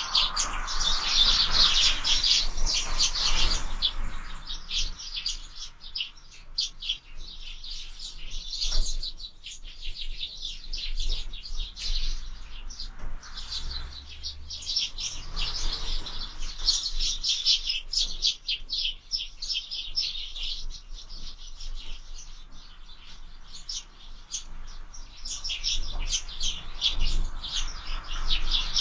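Sparrows chirping continuously, many short overlapping chirps, busiest in the first few seconds, again around the middle and near the end.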